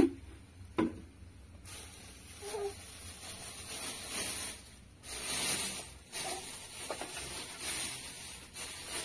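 A plastic bag rustling and crinkling in uneven surges as it is handled over a metal food tray, after a sharp knock at the very start and a lighter one just under a second later.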